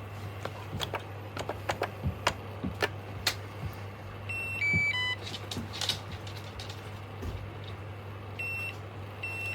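Electronic beeps from a Lefant M330 Pro robot vacuum: a quick chime of several short notes at different pitches about halfway through, then single high beeps near the end. Underneath is a steady low hum, with light clicks and taps in the first few seconds.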